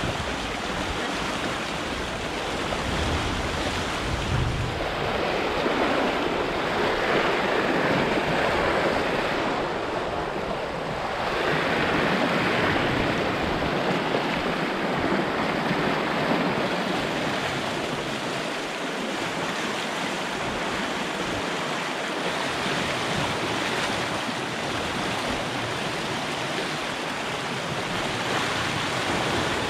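Rushing water of a river in full flood, a steady churning noise that swells and eases a little.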